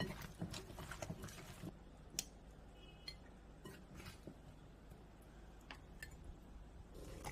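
Faint, irregular clicks and light taps of food preparation in a kitchen.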